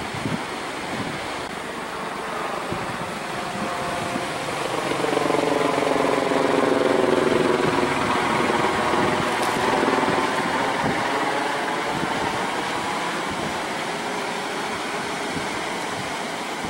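An aircraft passing overhead: its noise swells over several seconds, peaks near the middle and fades away, over a steady wash of surf and wind.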